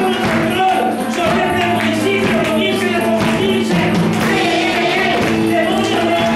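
Worship music: voices singing over a band with a steady beat, and a tambourine shaking.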